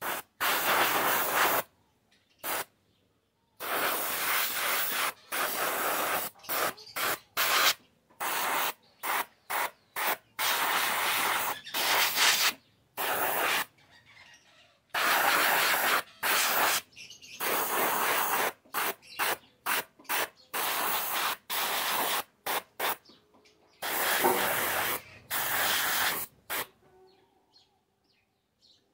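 Airbrush spraying paint in many short bursts, each a steady hiss that starts and stops sharply as the trigger is pressed and released, some lasting up to about two seconds.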